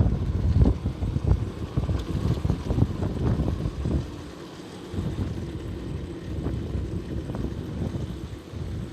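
A vehicle driving on a mountain road, its low running rumble covered by wind buffeting the microphone in uneven gusts that ease off about four seconds in.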